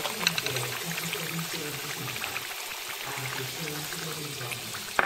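Taro sticks deep-frying in a wok of hot oil: a steady sizzle with many fine crackles, and a sharp tap just before the end.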